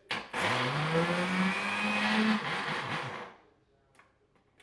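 Countertop blender chopping sliced raw carrot: a click as it is switched on, then the motor spins up with a rising whine, runs for about two seconds and winds down as it is switched off.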